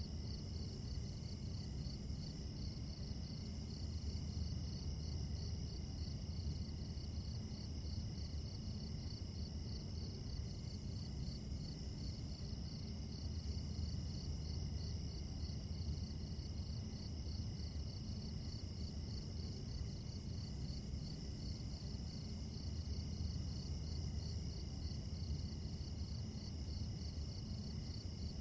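Night chorus of crickets chirping steadily, with a fast, even pulsing trill over a continuous high ringing, above a steady low rumble.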